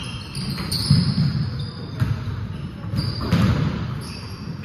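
Basketball bouncing on a hardwood gym floor several times at uneven intervals, echoing in the large hall, with short high squeaks of sneakers on the court.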